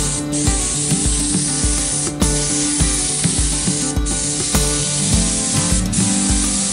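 Gravity-feed air spray gun hissing steadily as it sprays primer, under background music with a steady beat.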